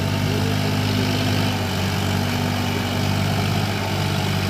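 Eicher 557 4WD tractor's three-cylinder diesel engine running steadily under load, driving a rotavator through deep mud.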